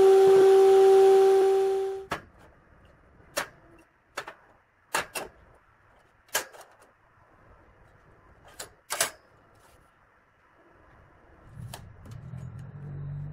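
A table-mounted router running with a steady high-pitched whine, cut off about 2 s in. Then a series of sharp metallic clicks and taps as short galvanized steel channel pieces are set down and handled on a steel workbench, with a low hum coming in near the end.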